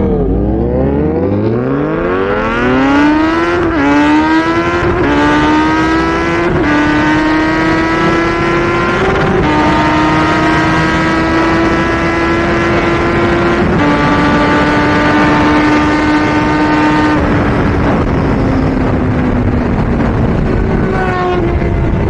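Kawasaki inline-four sport bike engine, heard from the rider's seat, pulling away and accelerating hard, the revs climbing and dropping with about five upshifts over the first fourteen seconds. It then holds steady before the revs fall slowly near the end as the throttle is eased.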